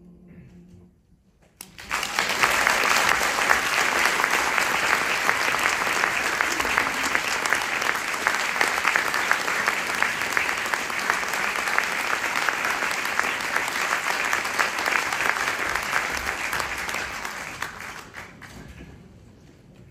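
A choir's last held chord fades out, then after a brief pause the audience breaks into applause, which goes on evenly for about sixteen seconds and dies away near the end.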